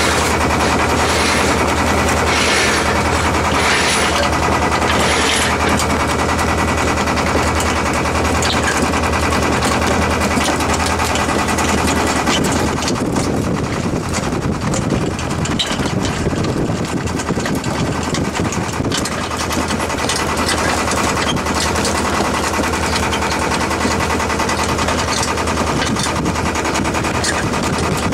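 Sailboat's sail flapping and cracking as it luffs with the bow dead into the wind, with several hard cracks about a second apart in the first few seconds. Under it runs the steady drone of the boat's engine.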